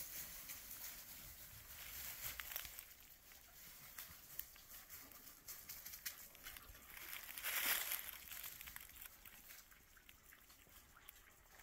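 Footsteps crunching and rustling through dry fallen leaves on sandy, rocky ground, with scattered crackles and a louder stretch of crunching about two-thirds of the way in.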